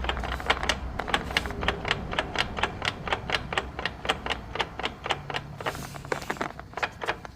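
Rapid, regular clicking from the Honda Odyssey's transmission area, about four to five sharp knocks a second, fading near the end. The mechanic suspects a loose torque converter bolt or a cracked flex plate.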